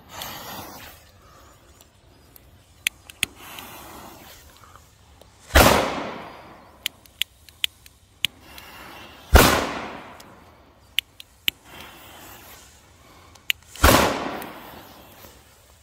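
Three loud firework bangs, about four seconds apart, each echoing away, with scattered small sharp pops between them.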